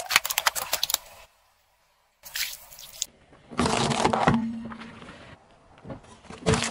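A car tyre crushing objects in a run of separate short clips: water balloons bursting with wet splashes in the first second, carrots crunching under the tyre about four seconds in, and a metal drink can crushed near the end.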